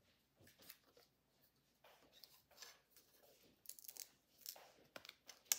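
Faint crackling and small ticks of thin die-cut cardboard brackets being handled and folded by hand, with one sharper snap near the end.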